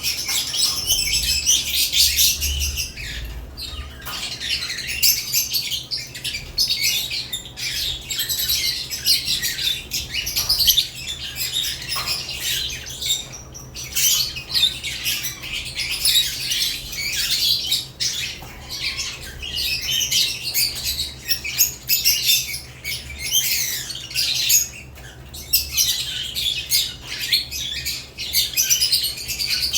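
Lovebirds chattering and squawking continuously, a dense flock of shrill, high chirps with a few brief lulls.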